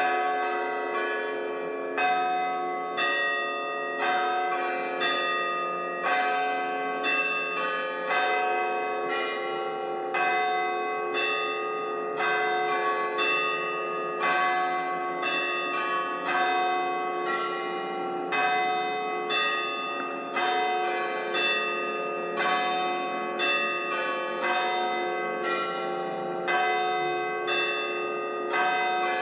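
Church bells pealing: several bells of different pitch struck in turn, about two strikes a second, their ringing tones overlapping and hanging on between strikes.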